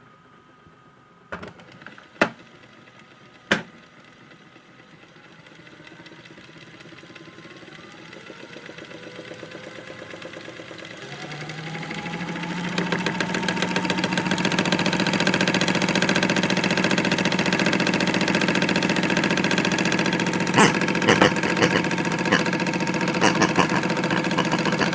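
Modified Hotpoint toy washing machine: a few sharp clicks, then its small electric motor winds up over several seconds, rising in pitch to a steady whirr. Sharp rattling knocks come in near the end as the drum turns.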